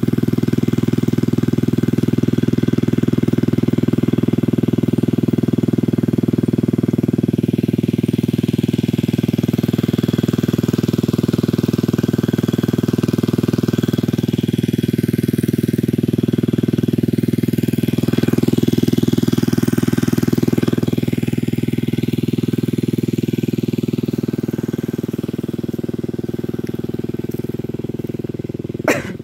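Greaves pumpset engine running steadily, driving an irrigation water pump. A single sharp click comes just before the end.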